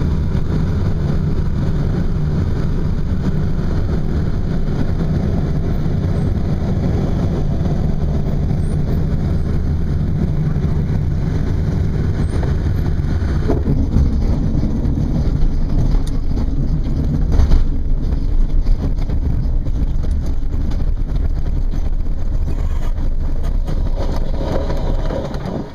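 Air rushing over a glider's cockpit on final approach. About halfway through, the glider touches down and its wheel rumbles and bumps over grass. The rumble dies away near the end as it rolls to a stop.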